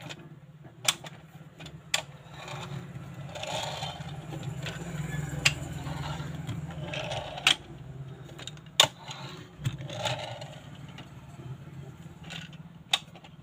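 Plastic press-and-go toy scooters: sharp clicks as the toys' heads are pressed down, and a whirring from their gear mechanisms as they roll across a hard tabletop, over a steady low hum.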